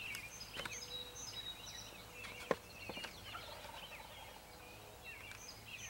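Wild turkey gobbling, among other birds' short chirps and thin, high whistled notes. A few sharp clicks stand out, the loudest about two and a half seconds in.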